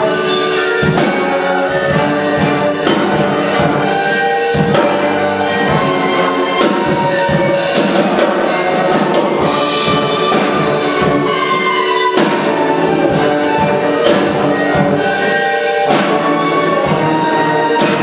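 Small wind band of flutes, clarinets, saxophones, euphonium, horn, trombone and sousaphone, with marimba and drum kit, playing live, the drums keeping a regular beat. A trombone plays a solo over the band, with one long falling note about ten seconds in.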